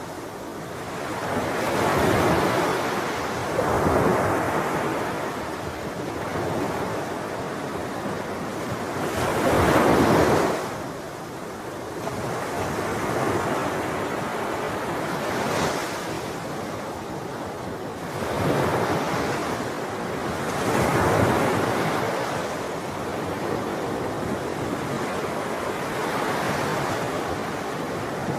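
Ocean waves breaking and washing on the shore, the surf swelling and falling back over and over, the loudest wave about ten seconds in. Wind rumbles on the microphone.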